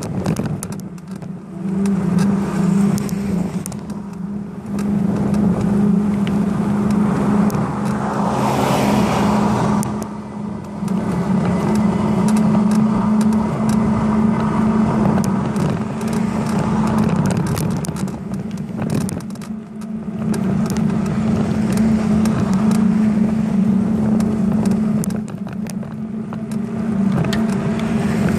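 Riding noise picked up by a bicycle-mounted camera: a steady rolling hum from the tyres on the road, with a constant rattle of small clicks and knocks from bumps jolting the mount. A brief rushing swell comes about eight seconds in.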